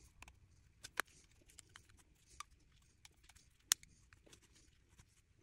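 Faint handling sounds of a rubber band being stretched and wrapped around a pocketknife to clamp a freshly glued shield: scattered small clicks and ticks, with two sharper snaps, one about a second in and one past the halfway point.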